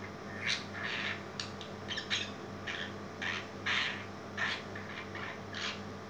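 Budgerigar chattering in a run of short, scratchy chirps at an irregular pace, over a steady low hum.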